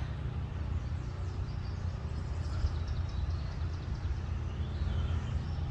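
Quiet outdoor ambience: a low steady rumble with faint, high bird chirps.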